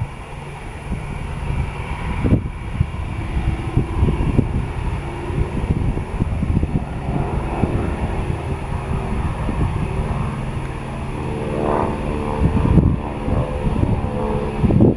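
Twin Beech 18 flying past with its two Pratt & Whitney R-985 radial engines droning. The engine note comes through more clearly and shifts in pitch in the second half.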